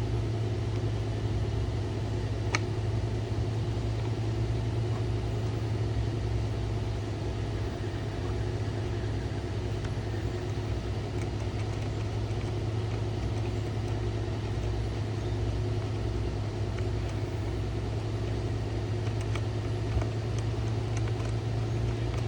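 A steady low mechanical hum, with a few faint sharp clicks: one a couple of seconds in and a few more near the end.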